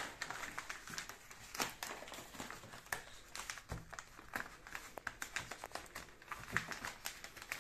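White paper envelope rustling and crinkling as hands handle it and work it open, with many small irregular crackles and taps.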